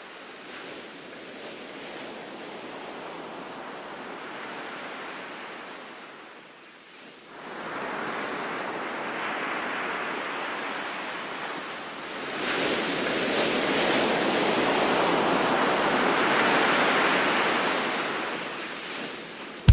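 Ocean surf breaking and washing on a beach, a steady rushing hiss. It dips briefly about six seconds in, comes back louder, swells again about twelve seconds in, and fades near the end.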